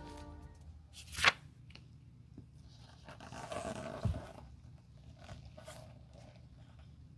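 Rubber-gloved hands handling a worn leather loafer: a sharp swish about a second in, then rustling and a soft knock around four seconds in as the shoe is picked up and turned over, with faint small clicks and rustles after. Background music fades out at the start.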